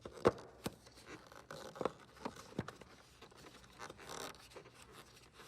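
Faint handling sounds of a headlight dust cover being fitted back onto the rear of the headlight housing: a handful of small clicks and scrapes over the first three seconds, then a brief rustling scrape near the end.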